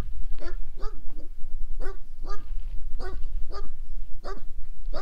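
A dog barking repeatedly, about eight short barks, often in quick pairs, over a steady low rumble.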